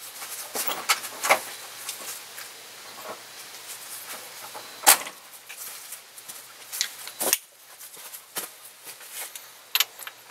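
Metal hand tools clinking and clattering in a series of irregular sharp clicks, the loudest about five seconds in, as a ratchet and socket are picked up and the socket is fitted onto the belt tensioner's bolt near the end.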